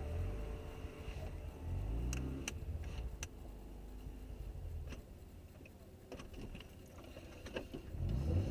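Mazda RX-7 FC's 13B rotary engine idling on the drag strip start line, with blips of the throttle: the revs rise briefly at the start and again about two seconds in, drop back to idle with a few sharp ticks, and climb again near the end.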